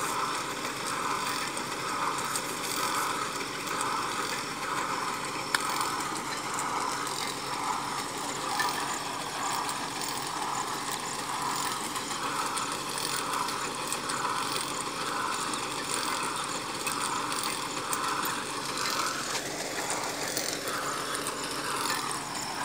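Borewell drilling rig's engine running steadily, with a regular pulsing beat somewhat faster than once a second and a brief rise and fall in pitch near the end.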